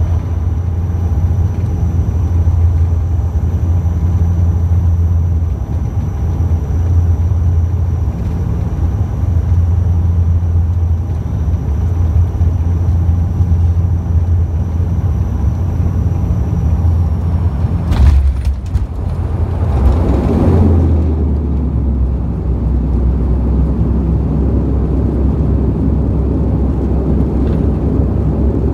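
Steady low drone of a turboprop airliner cabin in flight, with a propeller hum at its base. There is a sharp knock about 18 seconds in and a brief swell of rushing air around 20 seconds, after which the drone carries on a little lower.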